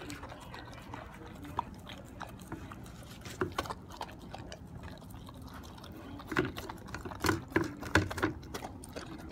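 Bernese Mountain Dog eating raw meat and vegetables from a stainless steel bowl: wet chewing and smacking, with a run of louder sharp smacks between about six and eight seconds in.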